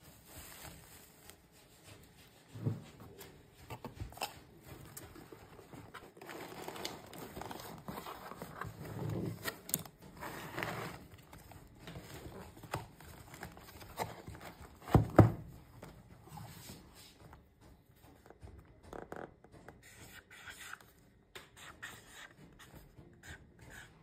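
Hands handling a cardboard mailer box and its shredded paper filler: rustling and light scraping, with a few knocks and one loud thump about fifteen seconds in.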